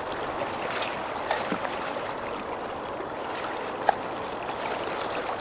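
Steady rush of flowing water, like a creek, with a few small clicks and one sharper click a little before the four-second mark.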